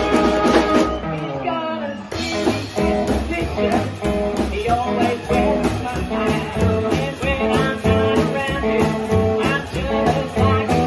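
Live rockabilly band playing: upright bass, electric guitar and drums, with a woman singing.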